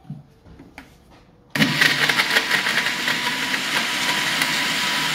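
Countertop blender switched on about a second and a half in, chopping soaked dates in a little water: uneven and choppy at first as the blades catch the pieces, then running steadily. Before it starts, a few light knocks as the lid is fitted.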